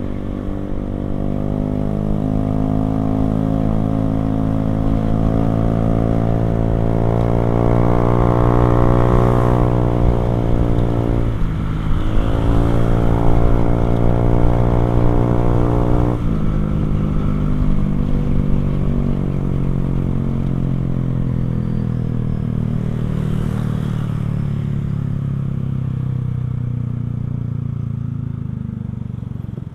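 Motorcycle engine running through a NOB1 aftermarket exhaust while riding. The exhaust note rises steadily as the bike accelerates, dips briefly and climbs again about halfway through, then drops abruptly at a gear change and settles into a steady cruise that slowly eases off toward the end.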